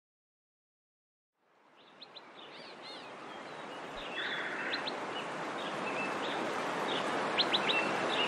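About a second and a half of silence, then a wood fire burning fades in as a steady rushing noise that grows louder. Birds chirp over it.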